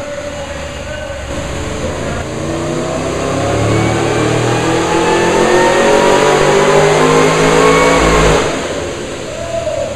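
Whipple-supercharged V8 of a Holden SS Commodore on a chassis dyno, revving up steadily at full throttle in a power run. About eight seconds in, the throttle snaps shut and the engine drops back to a low running note.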